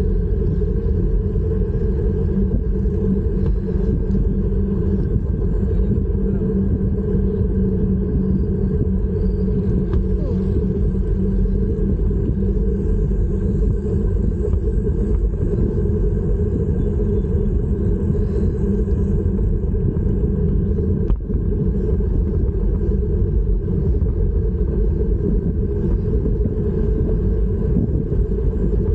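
Steady low wind rumble buffeting the microphone of a bicycle-mounted 360 camera while riding, mixed with the bike's rolling noise.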